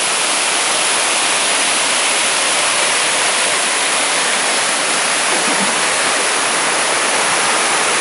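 Waterfall cascading over rocks into a stream: a steady, unbroken rush of water that is mostly hiss with little low rumble.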